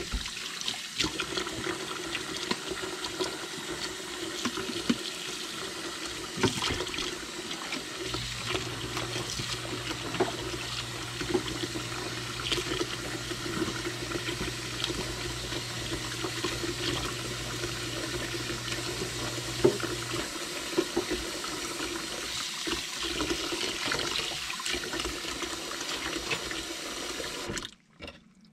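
Kitchen faucet running into the sink during hand dishwashing, with scattered clinks and knocks of dishes. A low steady hum joins in for about twelve seconds mid-way. The water shuts off abruptly near the end.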